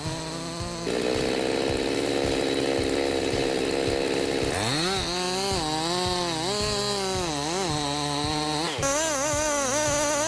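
Chainsaw cutting, its engine note rising and falling as the throttle is worked, harder and noisier in the first few seconds and then easing off and revving in waves.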